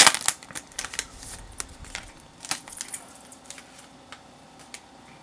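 Foil booster-pack wrapper crinkling loudly as it is pulled open, then scattered light crackles and ticks of the wrapper and cards being handled, thinning out to a few faint ticks.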